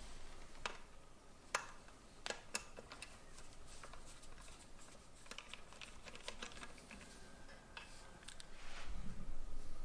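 Light, irregular clicks and ticks of a small hand screwdriver turning out a tiny screw that holds a mounting bracket to a model locomotive's underframe.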